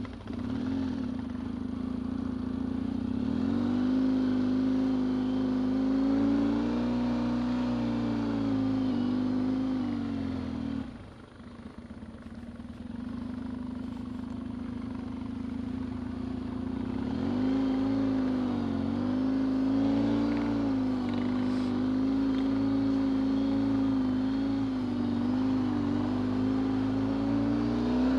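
Yamaha XTZ 750 Super Ténéré's parallel-twin engine running at low speed under a constantly shifting throttle, its pitch wavering up and down. About eleven seconds in the throttle closes and the engine drops back briefly before pulling again.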